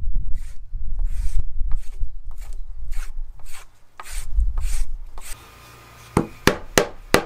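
A hand blade scraping bark off a green log in quick repeated strokes, about three a second. About five seconds in this gives way to four sharp knocks as a carving chisel is set into the wood.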